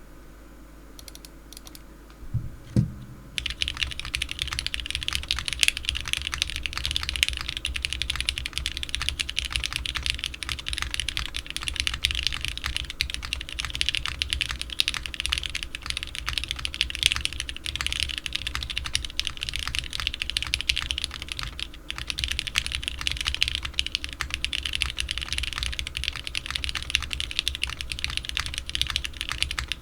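Typing on a Capy60 custom 60% mechanical keyboard with lubed Cherry MX Black linear switches on a carbon fibre plate and GMK keycaps. A low thump about three seconds in, then steady, fast continuous typing.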